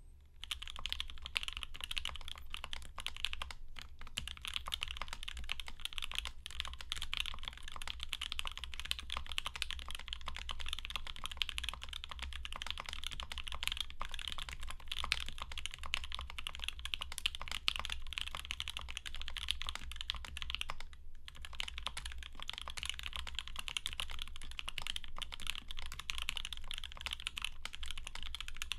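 Continuous fast typing on a mechanical keyboard: an acrylic Alice-layout board with an acrylic plate and no dampening, fitted with lubed, filmed Alpaca linear switches and GMK keycaps. There is a brief pause about three-quarters of the way through.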